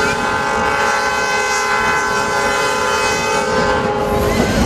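Train horn sounding one long blast of several notes together, cutting off about four seconds in, over the low rumble of the moving train.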